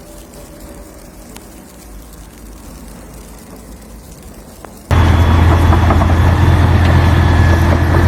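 A quiet background with a low rumble, then a sudden cut about five seconds in to a loud, steady motor-vehicle engine running.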